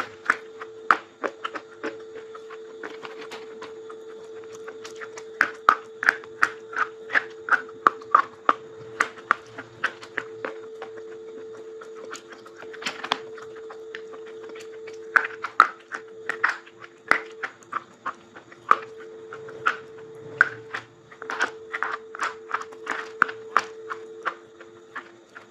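Close-up crunching of a dry, brittle item being bitten and chewed: runs of crisp crunches at about two a second, with short pauses between the runs. A steady faint hum lies underneath.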